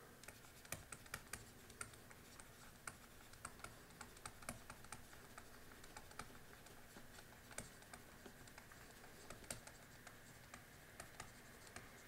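Faint, irregular clicks and taps of a stylus on a pen tablet as words are handwritten, a few taps every second.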